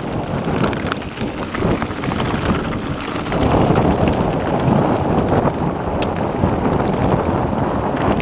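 Wind buffeting the microphone of a camera on a moving mountain bike, over the crunch and rattle of tyres rolling on a rocky gravel track, with small knocks and clicks from the bike; louder from about three seconds in.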